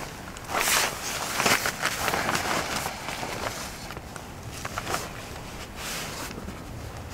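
Rustling and scattered clicks and knocks from a Naturehike camp cot's fabric and frame being handled and forced together during assembly, busiest and loudest from about half a second to two seconds in.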